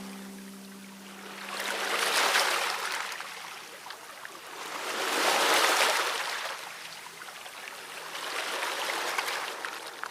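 Water washing in three slow swells about three and a half seconds apart, like waves rolling in, with a light crackle of spray.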